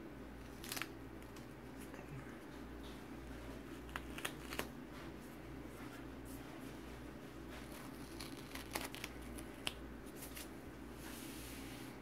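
Faint crinkling and a few short sharp clicks from gloved hands handling a white dressing strip and its wrappings, over a steady low room hum.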